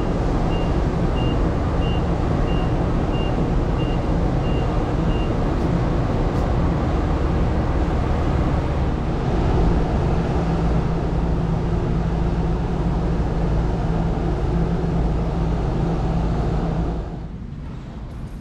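Steady loud rumble and roar of the berthed ferry Hamayu's engines and machinery running, with a high beep repeating about every two-thirds of a second for the first five seconds. Near the end the roar drops off abruptly to a quieter indoor hum.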